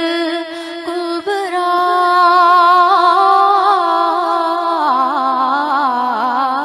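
A woman singing a naat, drawing out long held notes with a wavering vibrato; the melody steps lower about five seconds in.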